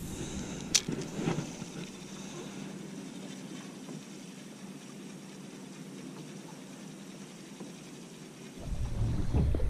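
A spinning reel's bail snaps shut with one sharp click just after the cast. Then there is only a faint steady hiss while the lure is worked back. Wind starts buffeting the microphone near the end.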